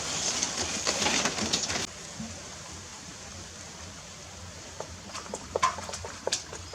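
Water splashing and pattering for about two seconds, stopping abruptly; then a quieter stretch with scattered sharp ticks and drips near the end.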